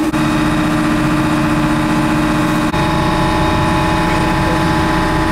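Passenger boat's engine running steadily under way, a constant droning hum with fixed tones.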